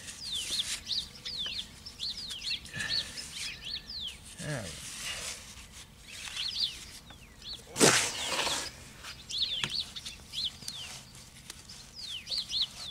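Small birds chirping over and over, short high downward-sweeping chirps several times a second, over soft rubbing of wet cement being packed by a gloved hand around a window frame. One sudden loud noise about eight seconds in.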